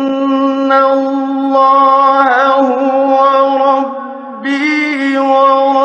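Male Quran reciter chanting in slow, melodic tajweed style, holding long sustained notes with ornamented wavers in the pitch. The voice dips briefly about four seconds in, then comes back on a higher phrase. It is an archival 1958 radio recording.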